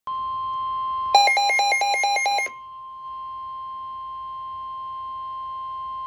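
NOAA Weather Radio warning alarm tone, one steady high tone of about 1 kHz, through a Midland weather alert radio's speaker. It signals that a warning broadcast follows. About a second in, a burst of rapid beeps, about five a second, sounds over the tone for roughly a second and a half.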